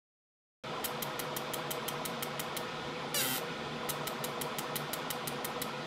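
Omtech 30 W fibre laser engraving tick marks into a steel dial turned on its rotary axis: a steady hum with quick regular ticking, about six a second, starting about half a second in. A brief louder whir about three seconds in.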